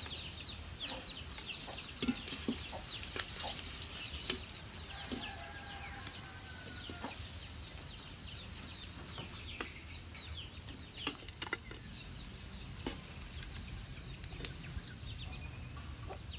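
Chicks peeping in many short, falling chirps and a hen clucking, over a faint sizzle of hot frying oil. Scattered sharp clicks come from metal tongs and a wire strainer knocking against a steel wok as fried chicken feet are lifted out.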